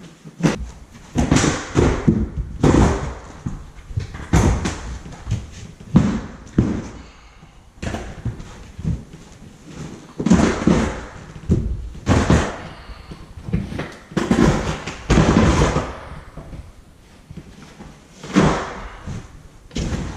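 Irregular run of scraping and thudding handwork noises, roughly one every second, each lasting about half a second to a second.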